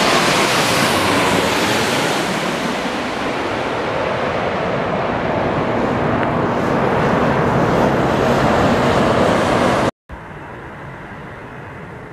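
Jet airliner's engines passing low overhead: a loud, steady rushing roar with a whining tone that falls in pitch over the first couple of seconds. About ten seconds in it cuts off abruptly, giving way to a much quieter, steady wind-like rush.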